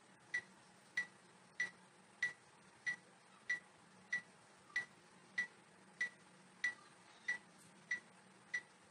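A workout app's exercise timer ticking: short, high, click-like beeps evenly spaced about one and a half per second.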